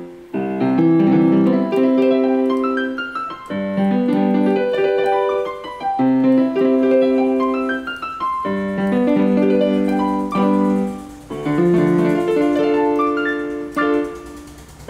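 Yamaha PSR-E263 portable keyboard playing a piano voice: a melody over chords in short phrases with brief pauses between them.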